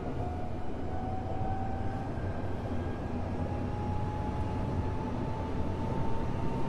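Tokyo Metro 05 series train running, heard inside the car: a steady wheel-and-rail rumble under a whine from the Toshiba IGBT VVVF inverter-driven traction motors, which slowly rises in pitch as the train gathers speed.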